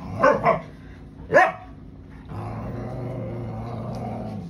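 Dogs squaring off in play: three sharp barks in the first second and a half, then a low steady growl from about halfway through.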